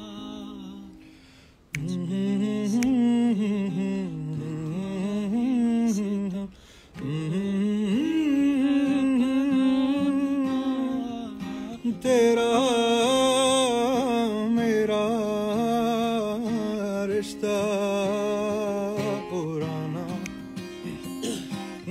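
A man humming a wordless melody over acoustic guitar; the voice comes in about two seconds in and pauses briefly near the seven-second mark.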